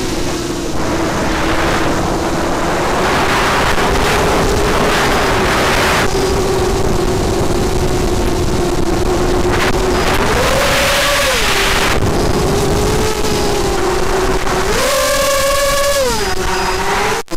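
FPV quadcopter's motors and propellers whining steadily. The pitch climbs twice, briefly, as the throttle is pushed. Wind rushes over the onboard camera's microphone.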